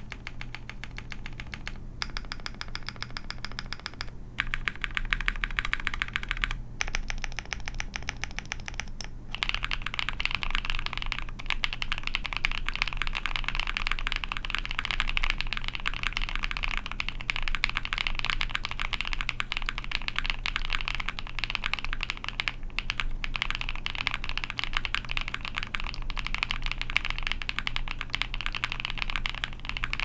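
Typing on a plateless Studio Kestra Nue 60% mechanical keyboard with lubed Cthulhu linear switches and PBT keycaps. It starts as a few short runs of rapid keystrokes with brief pauses between them, then becomes continuous fast typing from about nine seconds in.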